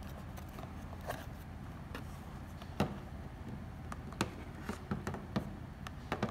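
Handling noise from unboxing a white plastic smart plug: scattered light clicks, taps and scrapes of hard plastic and cardboard as the plug is lifted out of its box and turned over, with a sharper click about three seconds in and another a second later.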